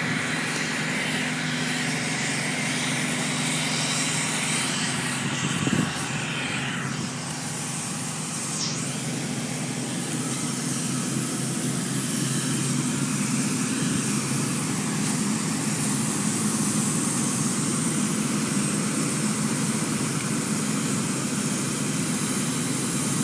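Steady rumble of vehicle engines running, with a brief louder bump about six seconds in.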